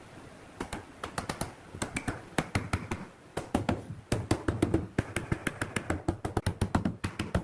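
Hardwood block used as a mallet, rapidly tapping the joints of a pine cabinet-door frame to seat the rails and stiles together: a quick run of sharp wooden knocks, several a second, starting about half a second in.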